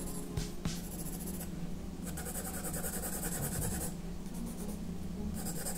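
Graphite pencil scratching across drawing paper in quick shading strokes, in several spells with short pauses between them.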